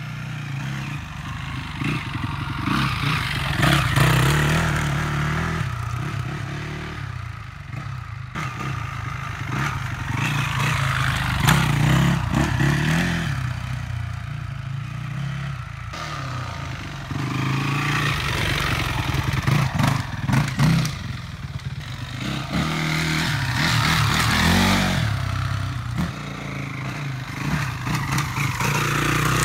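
Yamaha WR426 dirt bike's four-stroke single-cylinder engine being ridden, revving up and easing off again and again as the throttle is worked, its sound swelling and fading as the bike comes near and moves away.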